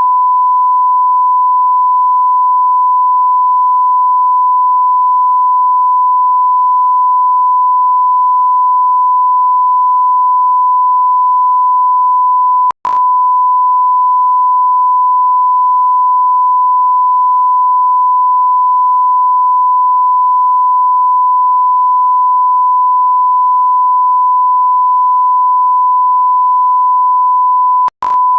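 Steady electronic beep tone, a single pure high note like a censor bleep or test tone, held continuously and loud. It drops out for an instant with a click twice, about halfway through and near the end.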